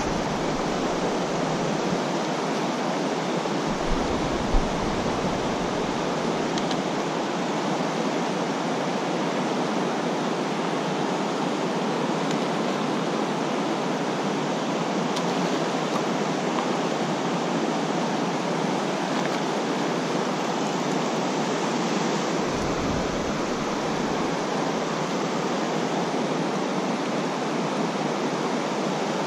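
Fast creek water rushing over rocky riffles, a steady even rush close to the water's surface. It is briefly joined by a low rumble about four seconds in and again around twenty-three seconds in.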